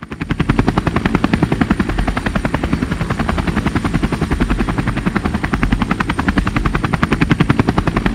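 Loud, steady, rapid chopping: about a dozen even beats a second over a deep rumble.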